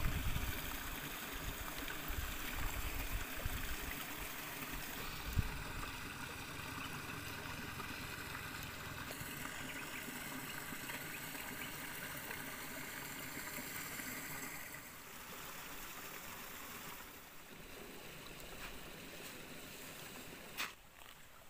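A shallow stream trickling steadily over rocks, with a few low thumps in the first few seconds and one sharp click near the end.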